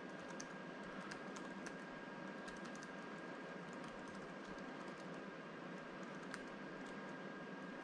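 Faint, irregular keystrokes on a computer keyboard, typing commands, over a steady low hiss with a thin high tone.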